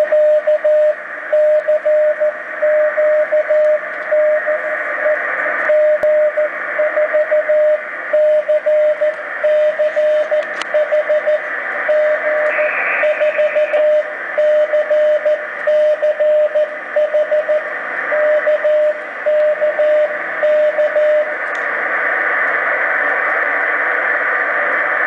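Morse code from a moon-bounce amateur radio station's speaker: a single steady tone keyed on and off in dots and dashes over steady receiver hiss. The keying stops about 21 seconds in, leaving only the hiss.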